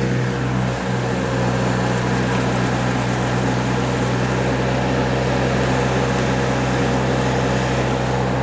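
Backhoe engine running steadily, a constant low hum with an even noisy wash above it.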